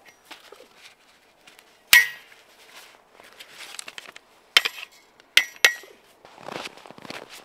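Sharp metallic clinks of a folding saw being opened and its metal parts snapping into place: one loud ringing click about two seconds in, then three more in quick succession a little past the middle. Crunching footsteps in snow follow near the end.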